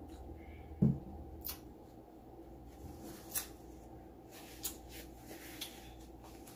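A handful of short, sharp clicks and ticks over a steady low hum, the loudest about a second in.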